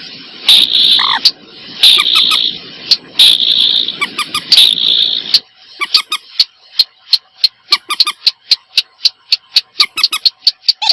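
Recorded water-bird lure calls of the mandar batu (common moorhen) and sintar sawah. Harsh, rasping calls repeat about once a second, then about halfway through they give way to a fast run of sharp clicking notes, about four a second.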